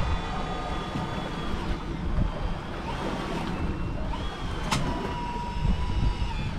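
Wind buffeting the microphone on a small boat at sea while a big saltwater spinning reel is cranked hard under load, bringing a fish up from deep water. Thin steady whines come and go over the rumble, and one sharp click sounds about three-quarters of the way through.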